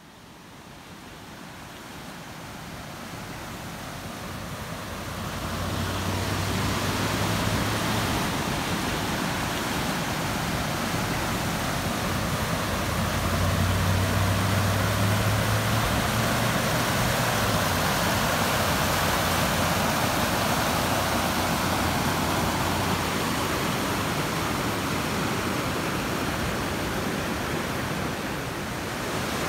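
Muddy floodwater rushing steadily in a swollen creek. The sound rises in over the first few seconds, and a low hum comes and goes in the middle.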